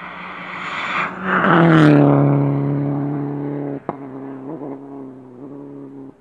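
Rally car engine approaching at speed and passing close by, loudest about two seconds in, its note dropping in pitch as it goes past. It then runs on and fades as the car drives off up the stage.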